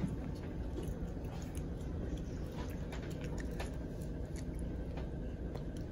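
Quiet small-room noise: a low steady hum with scattered faint clicks and rustles of handling.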